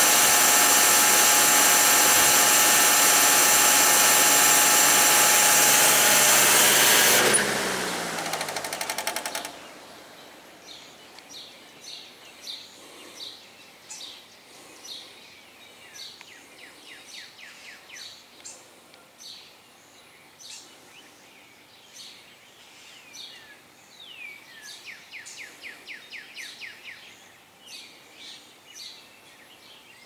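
Vintage Breezemaker electric box fan running steadily on high speed with a loud, even motor hum. It is switched off about seven seconds in, and its motor hum falls in pitch with a quick run of ticks as the blades coast down and stop. Birds then chirp faintly in the quiet.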